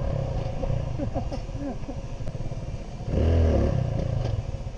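Dirt bike engine running at low revs, then a sharp rev about three seconds in that rises and falls: the throttle blip that pops the front wheel up for a wheelie.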